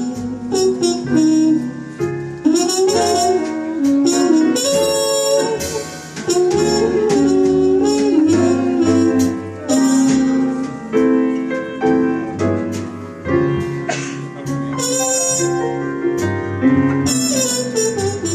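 Live small-group jazz: a horn melody over piano, upright bass and a drum kit with repeated cymbal crashes.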